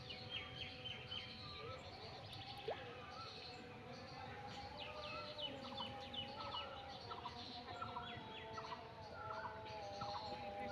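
Birds chirping and calling in quick, repeated short notes, thicker in the second half, over a faint steady hum.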